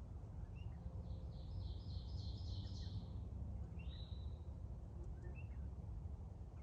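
Wild birds calling: a buzzy trill of rapid high notes lasting about two seconds, a short whistle about four seconds in, and scattered brief chirps, over a steady low background rumble.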